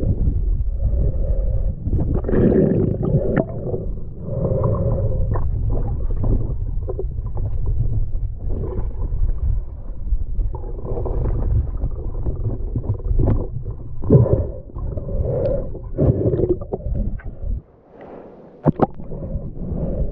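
Underwater sound through a submerged action camera: a steady low rumble of moving river water, with gurgling bubbles swelling every few seconds and scattered small clicks and knocks.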